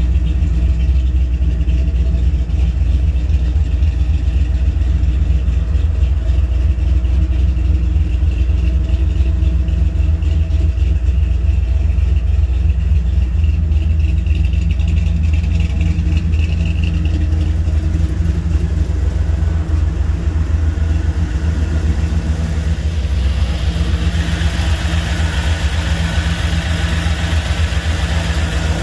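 The 1955 GMC pickup's hot-rodded V8 idling steadily, low and even. About three-quarters of the way through, a louder hiss joins the idle.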